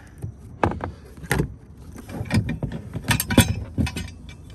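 Metal clinks and knocks as a small kayak anchor and its chain are handled and set out: about eight separate sharp clanks.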